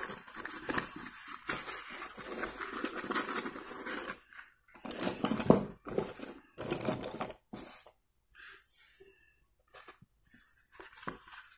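Slate pencils being handled and laid onto a pile of slate pencils: rustling with small clicks for the first few seconds, then several louder dry clatters of the sticks knocking together, before it goes mostly quiet.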